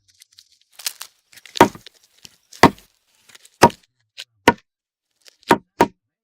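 Male palm cockatoo drumming a stick against a hollow tree trunk: about seven sharp wooden knocks, roughly one a second, with the last two coming in quick succession. This is his courtship display, meant to convince his mate that the hollow is solid enough to nest in.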